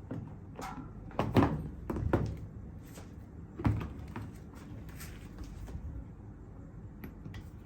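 Hard plastic clicks and knocks as the two-piece plastic housing of a washing machine's door-lock sensor is handled and pried apart at its snap locks. There are a few separate knocks, the loudest about a second and a half in and near four seconds in, then fainter clicks.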